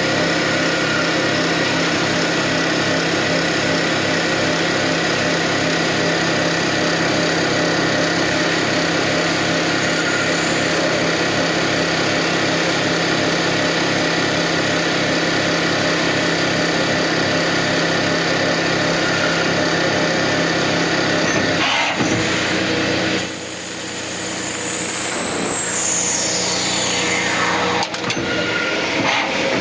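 Kraft Tech CNC automatic lathe running through a machining cycle: a steady machine hum with a fast, even pulse underneath. About 22 seconds in the sound changes, and a high whine falls steeply in pitch over a few seconds.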